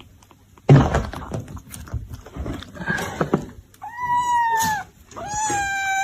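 A cat meowing twice in long, drawn-out calls in the second half. Before that there is a sudden thump about a second in, followed by scuffling.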